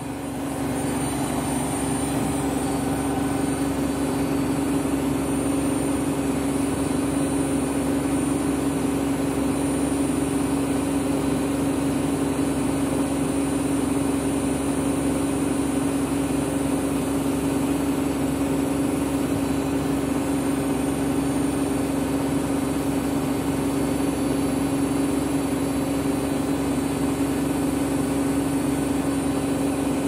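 Candy front-loading washing machine on a high-speed 1600 rpm spin with two bathrobes in the drum: a steady motor whine with the drum's rumble, holding an even speed after a slight pick-up in the first second.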